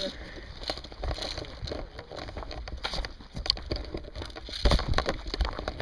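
Irregular clicks and knocks, with a couple of sharper knocks in the second half.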